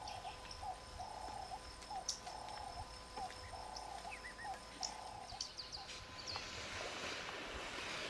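Bush ambience: a low animal call repeating about once a second in a long-short rhythm, with short high bird chirps over it. About three quarters of the way through, an even hiss comes up as the calling fades.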